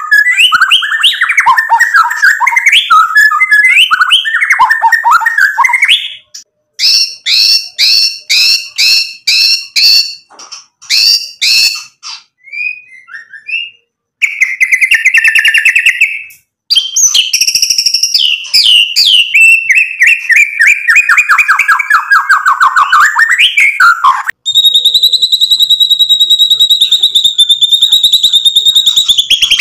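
Male white-rumped shama singing a loud, varied song: fast warbled phrases, then a run of repeated sharp notes about two a second, a short trill, and a long falling phrase. Near the end it holds a steady high rattling note for about five seconds.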